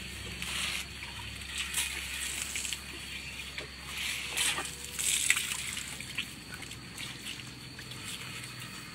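Water sloshing and splashing in a concrete trough as a baby elephant steps around in it and dips its trunk in, with irregular small splashes.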